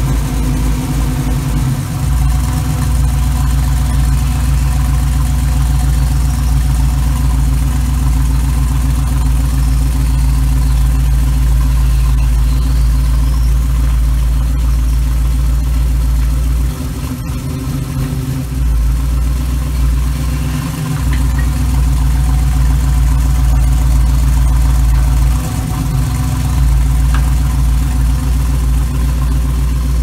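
Small-block Chevy 350 V8 in a hot rod running at idle through short open exhaust pipes, a steady low note. The note wavers briefly three times in the second half as the car creeps and stops.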